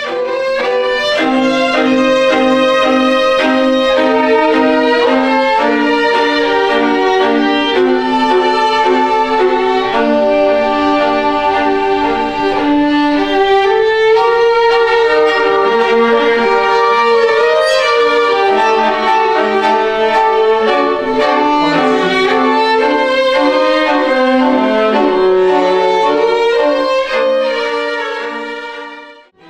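Violins played together in a small string ensemble: several bowed lines in harmony, with held notes that change every second or so. The sound drops away sharply at the very end.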